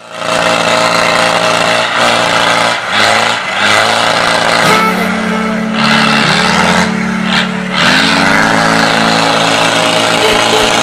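Off-road 4x4's engine running under heavy throttle as the vehicle wades through deep muddy water. The revs rise in steps several times, over the noise of spray and splashing.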